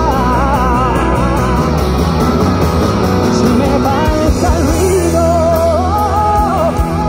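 Male lead singer singing live over a full pop-rock band, holding long notes in the second half, at a concert heard from the audience.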